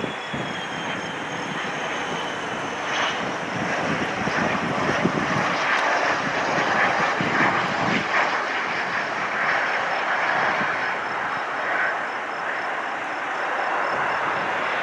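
Twin turbofan engines of a Cessna Citation business jet on landing approach. A high engine whine falls slightly in pitch over the first three seconds, over a steady rushing jet noise that swells around the middle as the jet passes.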